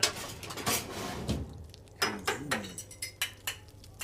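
Clinks and knocks of a stainless steel teapot and a tea glass being handled at a gas stove while tea is served: a few separate knocks in the first couple of seconds, then a quick run of clinks.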